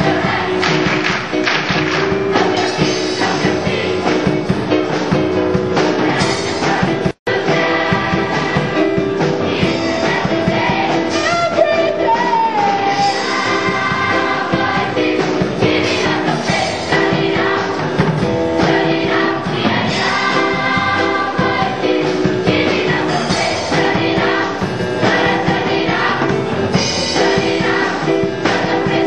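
Mixed choir of young women and men singing together, loud and continuous; the sound cuts out for an instant about seven seconds in.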